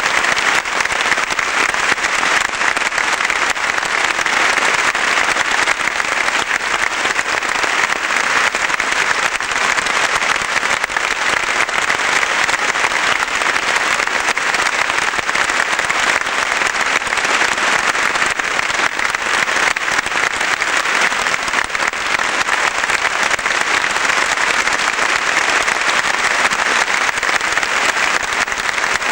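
A steady, loud hiss of noise that starts suddenly and holds level without a break.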